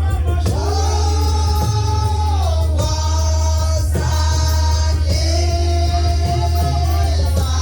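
Church music: singing with instrumental backing, long held sung notes over a steady deep bass.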